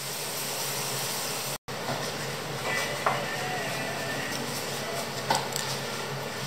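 A metal spring-lever ice cream scoop clicks and knocks twice as a ball of vanilla ice cream is released into a glass. A steady hiss runs underneath.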